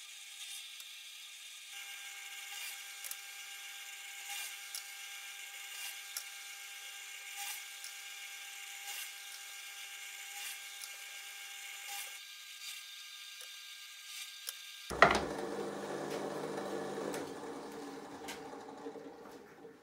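Bench drill press running with a steady motor whine while its bit drills pilot holes into a wooden piano key, with a short cutting pass about every second and a half. About fifteen seconds in there is a loud knock, followed by a rougher noise that fades away.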